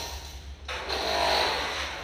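A small electric pressure washer running, its motor giving a steady low hum under the hiss of the water jet as the evaporator of a ceiling cassette air conditioner is sprayed clean.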